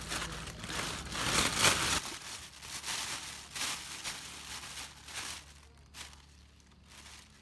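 Thin plastic carrier bag crinkling and rustling as leafy vegetables are pushed into it by hand. It is loudest in the first two seconds, then breaks into scattered, fainter rustles.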